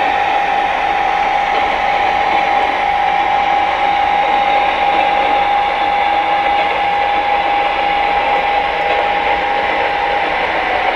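Lionel O-gauge model train running on the track: a steady mechanical whir with a constant whining tone through it.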